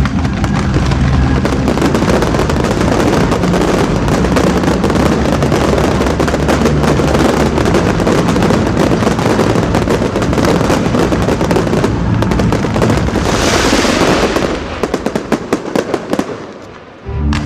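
Fireworks display: a dense, continuous barrage of bangs and crackle. In the last few seconds it thins to scattered crackling pops and dies away.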